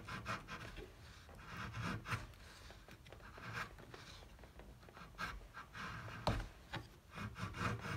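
Narex bevel-edge chisel paring the edge grain of a white oak block by hand: quiet, intermittent scraping cuts, with a sharper click about six seconds in.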